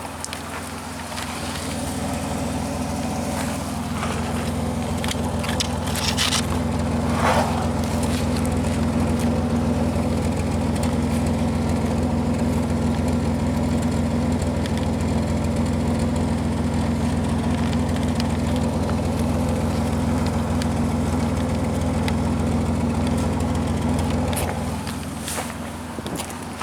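2003 Dodge Grand Caravan's 3.8 L V6 running with its air box removed for an open custom intake, so the intake noise comes through. The engine note builds over the first few seconds, holds steady for a long stretch, then drops back near the end.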